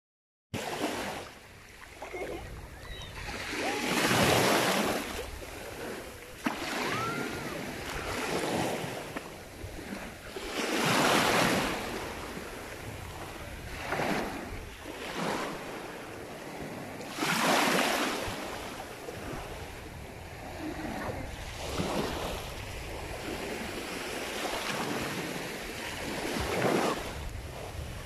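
Small sea waves washing in and out over a pebbly shoreline in shallow water, rising and falling in swells, with a bigger surge about every six or seven seconds.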